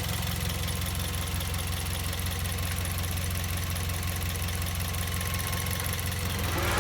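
Toyota Vios second-generation engine idling, with a loud chirping from the engine bay over the steady running. A louder rising sound comes in near the end.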